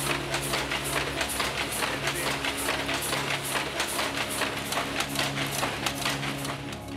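Rhythmic clatter of a weaving loom in a denim mill, an even beat of about three to four clacks a second, over a background music bed with low sustained notes.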